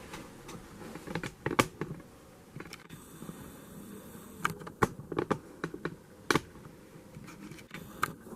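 Irregular clicks and taps of a computer keyboard and mouse being used, a few sharper clicks standing out among softer ones.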